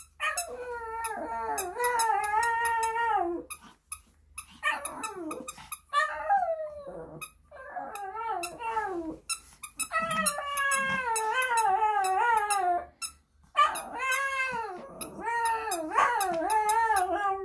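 Shih Tzu puppy howling along as if singing: a run of about six long, wavering howls, each one to three seconds, with short breaks between them.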